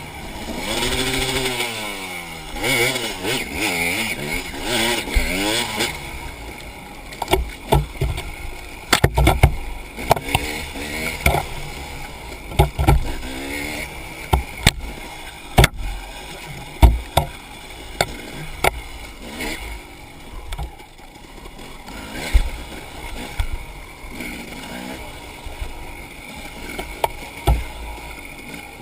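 Enduro dirt bike engine revving up and down through the throttle, then running lower with many sharp knocks and clatters over rough ground.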